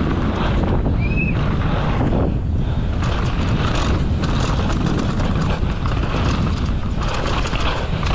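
Wind buffeting a GoPro's microphone on a downhill mountain bike at race speed, with a steady rush of knobby tyres on dirt and a constant rattling clatter from the bike's chain and frame over the rough track.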